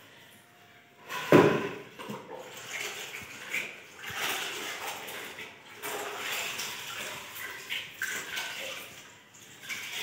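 A wet floor-mopping cloth being dunked, swished and wrung out in a plastic bucket of water, with uneven sloshing and dripping. A loud thump comes about a second in.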